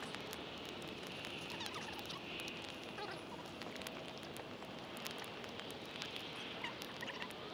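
Wood campfire crackling, with sharp pops scattered throughout, and faint bird calls in the background.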